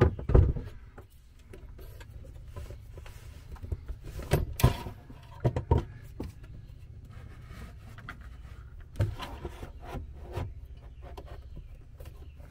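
A metal power-converter box being handled and pushed into place against wooden framing: scattered knocks, bumps and scrapes, the loudest about four and a half seconds in, over a steady low hum.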